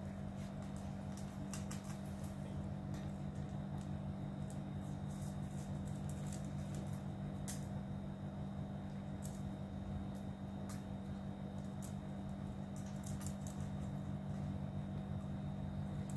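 Cats eating dry kibble from stainless steel bowls: small, irregular crunches and clicks, over a steady low hum.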